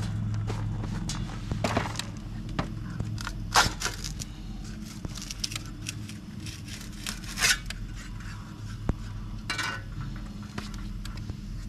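Light metal clinks, clicks and rattles of small hardware and metal parts being handled, with a few louder crackly rattles about 3.5 s and 7.5 s in, over a steady low machine hum.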